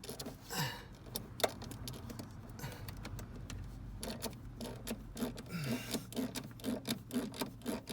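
Irregular small clicks and light metallic rattling of hand work with tools and fittings, with one sharp click about a second and a half in.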